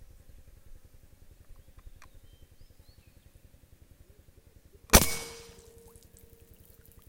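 One sharp, loud rifle shot about five seconds in, fired at a carp in shallow water, with a short decaying tail as the shot strikes and splashes the water.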